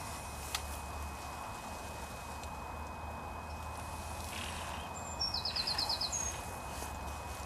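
A small bird singing a short phrase of about seven quick, evenly spaced high notes about five seconds in, over a steady low rumble of wind on the microphone and a faint outdoor hiss.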